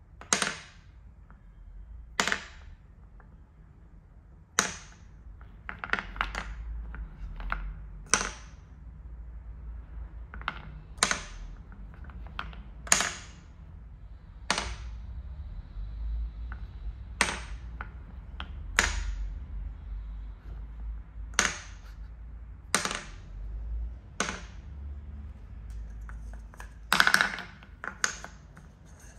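Solid linden-wood balls dropped one at a time into small wooden cups: a sharp wooden clack every couple of seconds, about a dozen in all, with a quick run of several clacks near the end.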